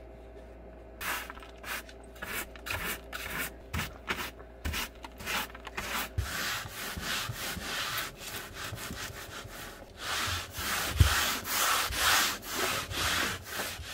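Broom sweeping a floor in quick brushing strokes, about three a second, the strokes growing longer and louder in the last few seconds.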